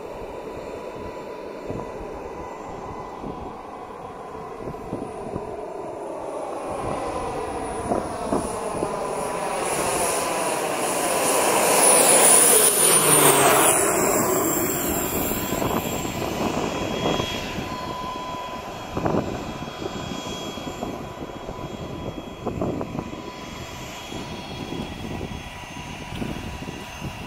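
Pilatus PC-12/47E single-engine turboprop on approach and landing: a steady turbine whine over propeller noise that grows louder as the aircraft passes close, loudest about halfway through, with the sound sweeping down in pitch as it goes by and then fading.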